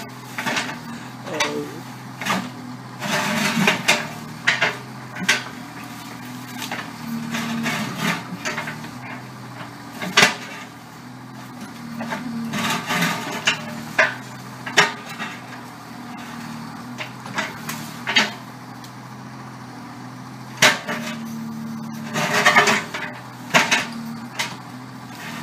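Volvo EC25 mini excavator's diesel engine running under hydraulic load, with repeated sharp knocks and several longer scraping stretches as its steel bucket strikes and drags against a large lump of concrete and rubble.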